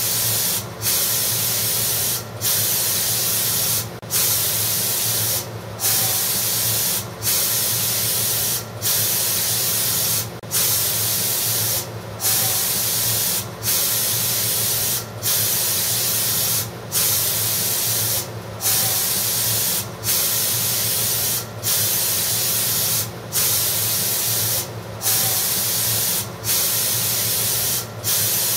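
Spray gun spraying slip onto a pot: a steady hiss, broken by a brief gap about every second and a half. A steady low hum runs underneath.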